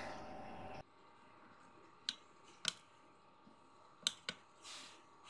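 Kitchen knife cutting a block of cream cheese on a tray: four faint clicks as the blade meets the tray, in two pairs about two seconds apart.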